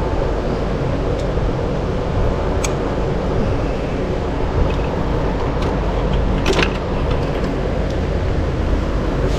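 Steady low mechanical hum, with a couple of light clicks from hand tools working on the engine.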